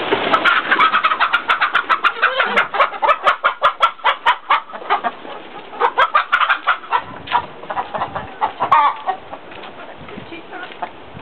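A flock of domestic hens clucking as they are let out of the coop: dense, rapid clucks for the first seven seconds or so, thinning out toward the end.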